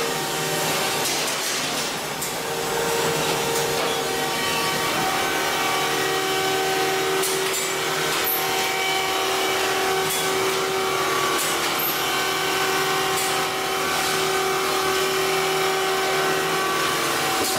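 Hydraulic car crusher's power pack whining steadily as the grated press lid swings down over the car, with a few faint metallic clicks.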